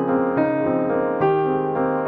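Background piano music, a melody of held notes changing several times a second.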